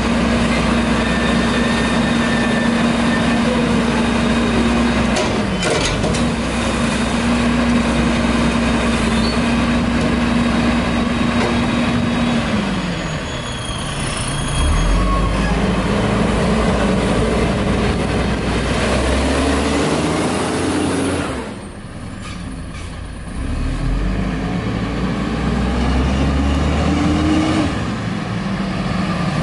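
White/GMC garbage truck's diesel engine held at high, steady revs while the Heil front-loader hydraulics work the raised carry can, then dropping back about twelve seconds in. After that the engine revs up and down repeatedly as the truck drives on.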